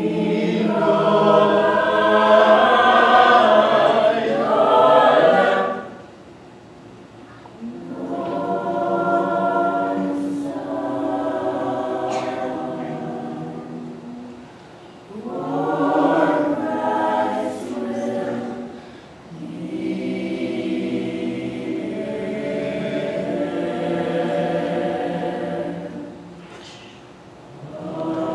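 Mixed-voice choir singing unaccompanied in long held phrases, with brief breaks between phrases about a quarter, half and two-thirds of the way through and near the end; the first phrase is the loudest.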